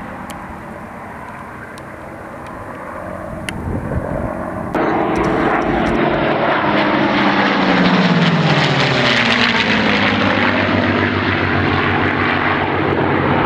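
Two P-51D Mustangs' Packard Merlin V-12 piston engines flying by. A fainter engine drone becomes suddenly much louder about five seconds in, and the engine note drops in pitch as the pair pass, then carries on steadily.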